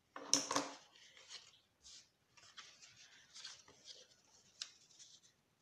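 Kraft cardstock box being handled and folded by hand: intermittent rustling and rubbing of stiff card, with a sharp tick about four and a half seconds in.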